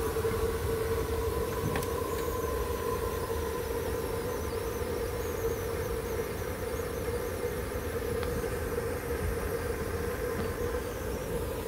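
Small coal-fired live-steam locomotive boiler being fired up to raise steam, giving a steady whistling hum over a low rumble.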